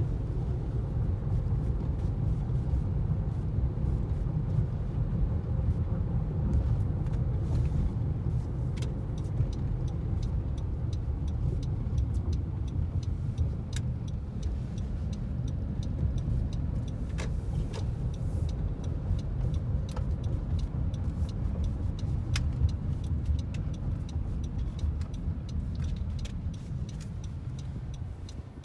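A car driving along a road: a steady low rumble of engine and tyre noise, with a few light clicks scattered through it.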